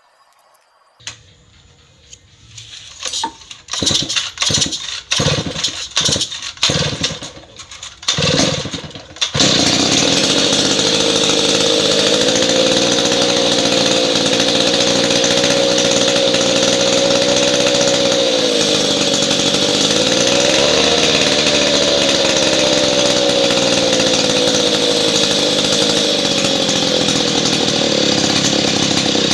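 A two-stroke chainsaw engine, freshly rebuilt with a new cylinder and piston, is started. It sputters in a string of short, uneven bursts, catches about nine seconds in, then runs steadily with a slightly wavering pitch.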